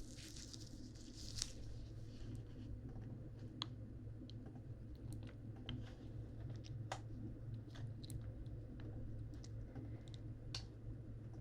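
Faint, scattered short clicks and ticks over a steady low hum.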